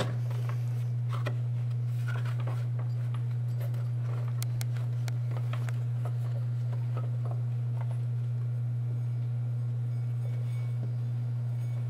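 A steady low hum throughout, with scattered faint clicks and knocks of hand work, mostly in the first half, as a fan clutch is worked up onto a water pump pulley.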